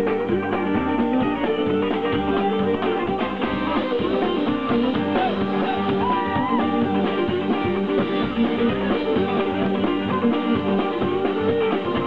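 A string band playing live: strummed acoustic guitars and a fiddle carrying the melody, with a steady beat.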